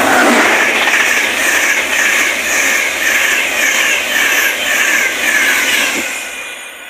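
InterCity 225 express, a Class 91 electric locomotive with Mk4 coaches and a driving van trailer, passing at speed: rushing air and wheel-on-rail noise with a regular beat about twice a second as the bogies go by. A single knock sounds near the end as the driving van trailer passes, then the noise fades away.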